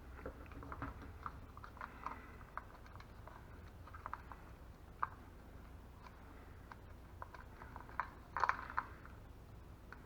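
Hands wrapping tape around the spliced wires of a decoy: soft, irregular crinkles and clicks of tape and small plastic parts, with a louder burst of crackling near the end, over a low steady hum.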